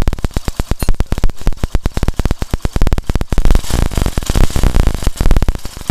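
Hero Passion Pro's single-cylinder four-stroke engine running at idle with a quick, even beat of firing pulses. With the 10 mm bolt loosened, it runs without the timing-chain-like rattle.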